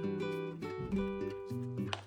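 Background music: acoustic guitar being strummed and plucked.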